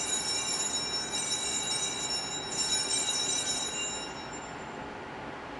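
Altar bells (sanctus bells) rung at the elevation of the chalice during the consecration: a shaken cluster of small bells, rung again about two and a half seconds in, then dying away.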